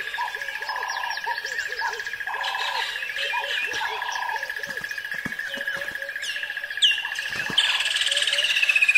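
Forest ambience of birds chirping and calling: many short repeated calls over a steady high trill. After about six and a half seconds, louder whistled calls glide down in pitch.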